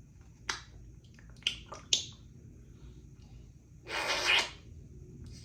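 African Grey parrot making a few sharp clicks in the first two seconds, then a short breathy hiss about four seconds in.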